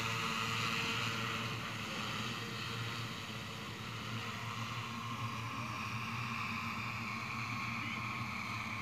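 Multirotor crop-spraying drone flying over the field: a steady propeller hum and whine that holds level throughout.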